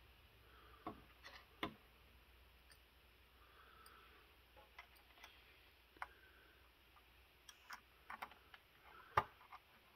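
Faint, scattered clicks and taps of a metal CPU-cooler mounting bracket and its screws being handled and taken off over a motherboard, with the loudest click about nine seconds in.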